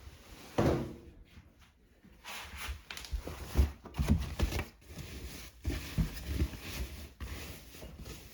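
Rustling and dull thuds of blankets being pulled out of a washing machine drum and handled, to lighten an overloaded, unbalanced load.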